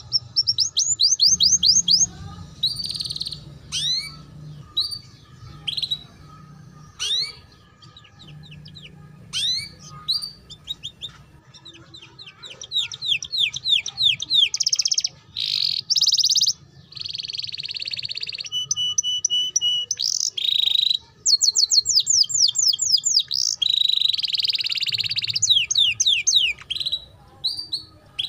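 Young domestic canary singing a long, varied twittering song in the 'ngeriwik' style: rapid series of falling whistled notes, fast trills and buzzy rolls in phrases with brief pauses between them.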